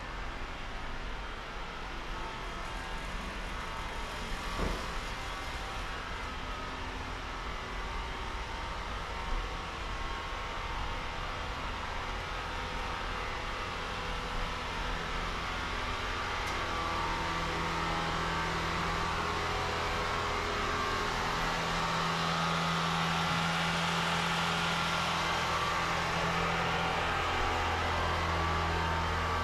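Urban street ambience with a steady wash of traffic noise; a low motor hum comes up and grows louder about halfway through and holds to the end.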